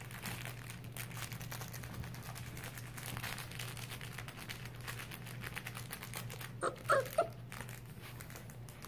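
Rustling and scratchy clicking as a Moyen poodle puppy mouths, tugs and scrabbles at a plush toy on a rug, with three brief high squeaky sounds near the end.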